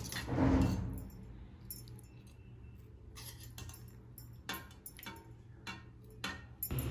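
A serving spoon and dishes clinking as chicken curry is served onto a plate: a soft thump at the start, then a series of light separate clinks of utensil on crockery.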